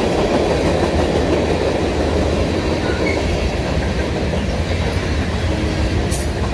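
Freight cars of a Canadian National mixed freight train rolling past close by: a steady rumble and clatter of steel wheels on the rails.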